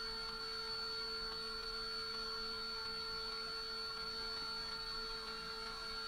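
Wood router mounted in a router table, running steadily at speed with a constant high whine as a timber block is passed over the bit.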